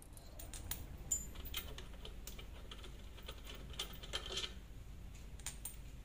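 Light, irregular clicks and taps of hands handling the plastic-framed stator of an LG front-loading washing machine's direct-drive motor as it is worked loose from the drum housing. The sharpest click comes about a second in, and a quick cluster of taps follows around four seconds in.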